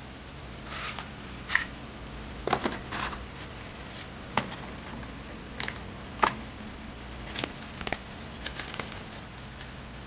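Packaging being handled and opened: about a dozen scattered sharp clicks and short rustles over a steady hiss.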